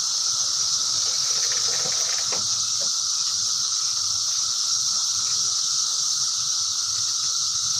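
Chorus of cicadas buzzing steadily and high-pitched, with a few faint knocks about two seconds in.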